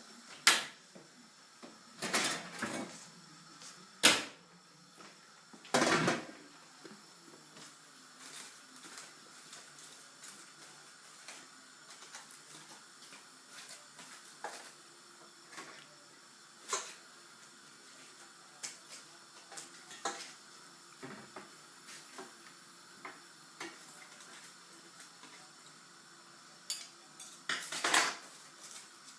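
Cookware being handled in a kitchen: an oven tray and dishes clank sharply four times in the first six seconds, then light ticks and knocks scattered through the middle, and another clatter near the end.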